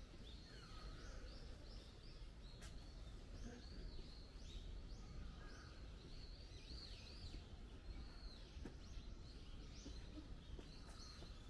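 Small birds chirping, a rapid series of short, arched high notes repeating several times a second over a steady low outdoor rumble, with a few faint clicks.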